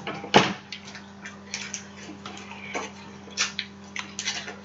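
Mouth and hand sounds of people eating a seafood boil: scattered short wet clicks and smacks at an irregular pace, over a faint steady electrical hum.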